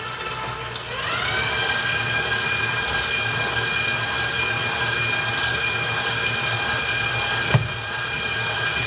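Stand mixer motor beating cake batter. About a second in it speeds up with a rising whine, then runs on at a steady high whine. A single sharp knock comes near the end.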